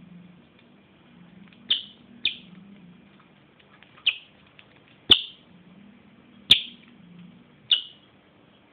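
Lovebird giving six short, sharp, high-pitched chirps at irregular intervals, right up against the microphone.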